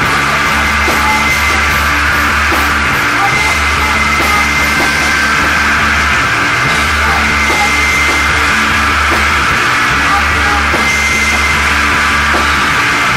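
Loud, dense heavy psychedelic rock music.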